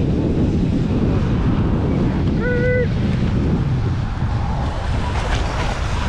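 Wind buffeting the microphone of a handlebar-mounted camera on a moving electric fat bike, a loud steady low rumble. A short, clear high tone sounds once, about two and a half seconds in.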